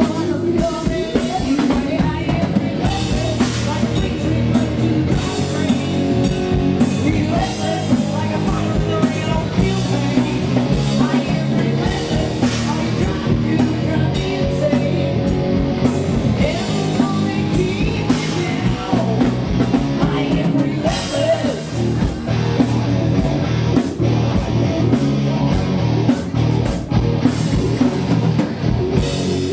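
A rock band playing live: electric guitar, bass guitar and a Tama drum kit, played hard at a steady loud level.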